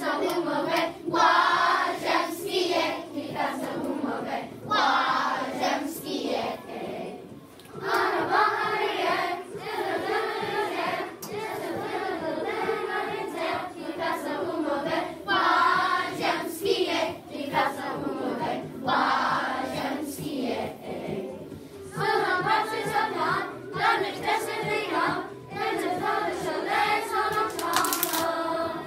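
A group of children singing a song together in phrases, with hand claps along the way.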